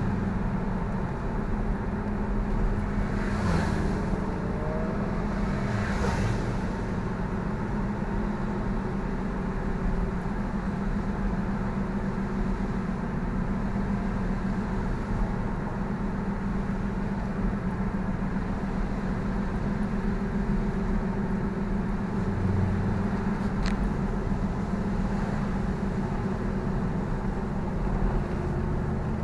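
Mercedes-Benz SLK 55 AMG's V8 engine and tyre noise heard from inside the cabin while cruising at steady speed: an even, low drone. There are a couple of brief swells about three and six seconds in.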